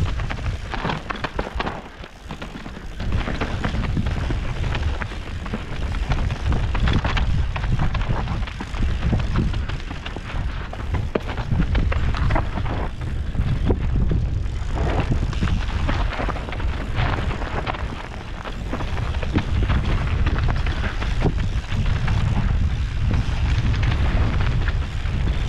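Mountain bike riding fast down rocky dirt singletrack: wind buffets the microphone in a heavy, uneven rumble, while the tyres run over dirt and stones and the bike rattles and knocks over the bumps.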